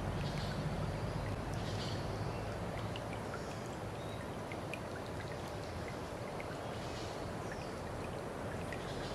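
Water running steadily, like a stream, with many small drips and splashes scattered through it.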